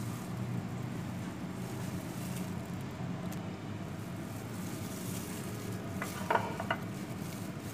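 Steady low background hum, with two or three light clinks about six seconds in from a metal spoon against a glass mixing bowl.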